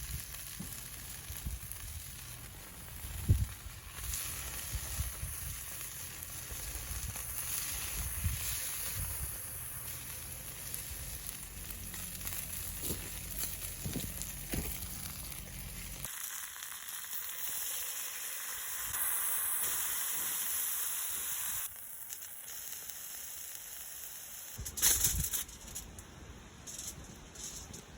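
Deer fillet steak sizzling in oil in a frying pan over a campfire, a steady hiss with a few sharp knocks. The sizzle thins abruptly a little past halfway.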